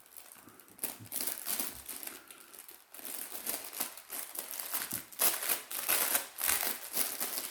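Plastic packaging bag crinkling and rustling in the hands as it is handled and opened, in irregular bursts that are loudest near the end.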